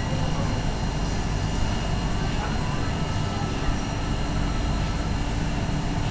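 Steady low rumble and hum of a convenience store's room noise, with faint steady high whines, typical of refrigerated drinks coolers and air conditioning running.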